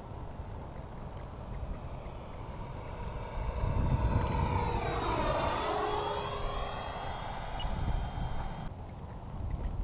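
Electric ducted-fan whine of a Freewing F-86 Sabre RC jet's 80 mm EDF making a pass, swelling to its loudest about four to six seconds in with a slight drop in pitch as it goes by, then fading.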